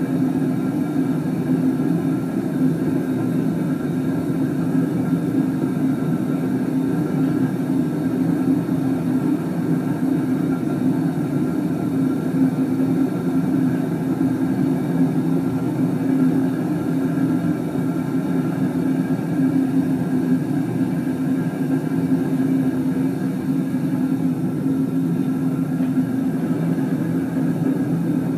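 Gas burner firing a small homemade foundry furnace built from an old gas cylinder, with flames venting from its top: a steady, even roar of burning gas.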